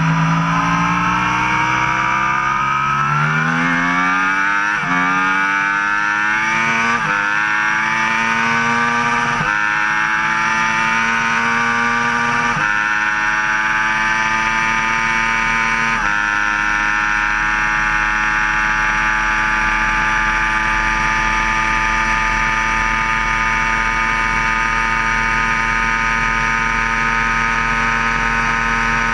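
Sport motorcycle engine at full throttle, accelerating hard up through the gears. Its pitch climbs and drops at each quick upshift, about 5, 7, 9.5, 12.5 and 16 seconds in. It then holds a steady high-rpm note in sixth gear near top speed.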